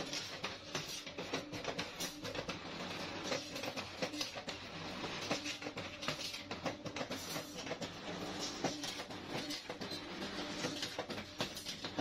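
Automatic steel-wire bending machine running, the wire feeding through its straightening rollers with a continuous rattling clatter of clicks and knocks.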